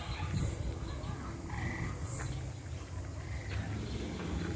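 Low, drawn-out growling of a recorded dinosaur sound effect played at the exhibit, with a few short high chirps over it.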